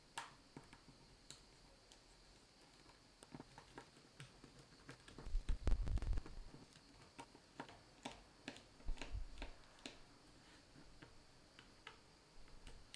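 Scattered light clicks and ticks of a small screwdriver unscrewing the tiny screws around a smartphone's plastic midframe, with a short cluster of louder low knocks about five to six seconds in.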